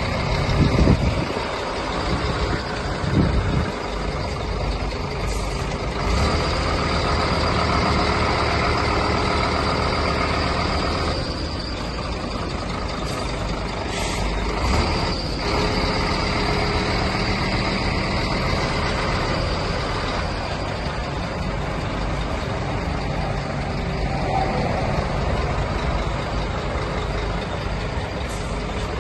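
Scania P230 lorry's diesel engine running as the lorry drives slowly past and turns, with a couple of brief hisses from its air brakes near the middle.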